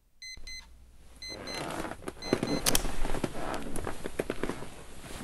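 Digital alarm clock beeping, short high electronic beeps in quick groups. From about a second and a half in, louder rustling with sharp knocks and clatter builds up and drowns the beeps out.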